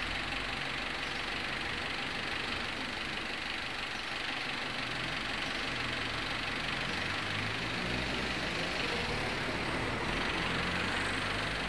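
Small flatbed truck's engine running steadily, driving its truck-mounted hydraulic crane.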